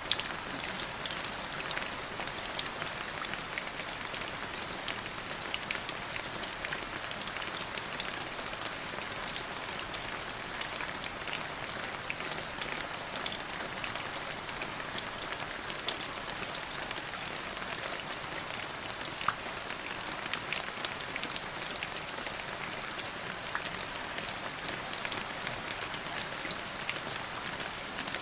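Steady rain falling on a surface: a dense, even hiss of drops, with sharp individual drop ticks scattered throughout.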